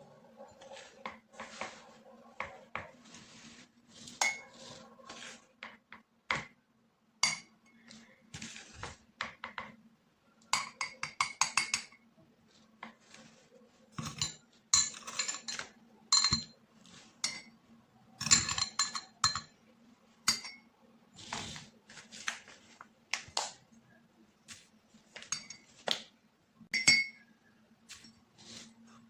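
A spoon clinking against a dish, in quick runs of strokes with pauses between, as cake batter is stirred and ingredients are spooned in.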